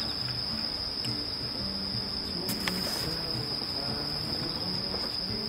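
Steady, unbroken high-pitched chorus of night insects such as crickets, with soft background music underneath.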